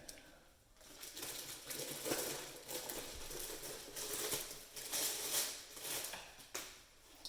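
Kitchen faucet parts and supply lines being handled, with a quick, irregular run of light clicks, clinks and rustles.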